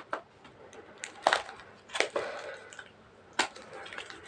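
Plastic or paper packaging being handled and crinkled, with a few sharp crackles spread out about a second apart.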